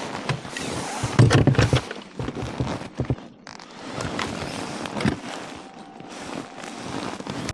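Irregular scraping, rustling and sharp knocks from a freshly caught bass and gear being handled in a fishing kayak, loudest about a second in.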